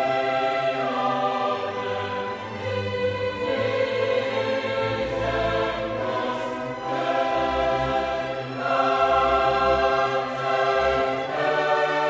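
Background music: a choir singing long, sustained chords that change every second or two.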